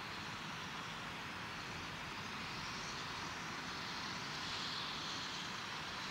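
Baldwin 2-6-2 steam locomotive drifting slowly closer. It makes a steady hissing rush with no distinct exhaust beats, growing a little louder about two-thirds of the way through.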